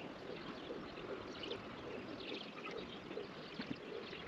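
Light, irregular splashing and sloshing of water at a reed-lined bank.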